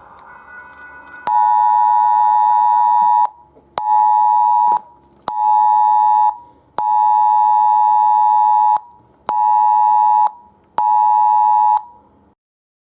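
Emergency alert test tone: a loud, steady beep that starts about a second in and sounds in a long-short-short pattern twice, then stops.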